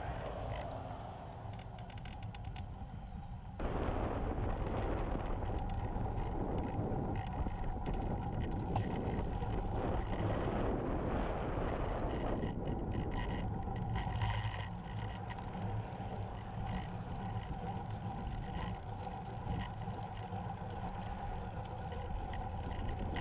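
Wind rushing over a bike-mounted camera's microphone, with tyre and road noise, as a time-trial bicycle is ridden; the rush gets louder about three and a half seconds in and then holds steady.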